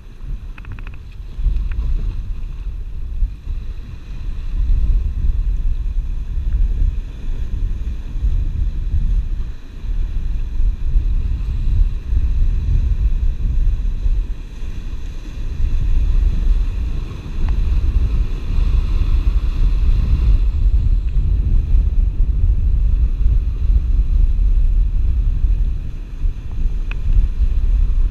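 Wind buffeting the microphone in a loud, gusting low rumble, over sea surf washing against the rocks, with a few faint ticks.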